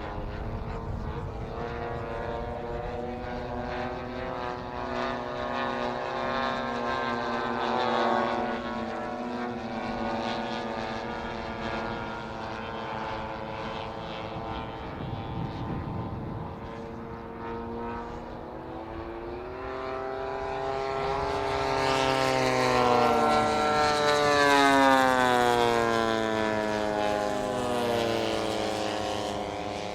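Radio-controlled scale Grumman Bearcat warbird models flying past with their propeller engines running. The sound rises and falls as they pass, and the loudest pass comes about two-thirds of the way through, its pitch dropping as it goes by.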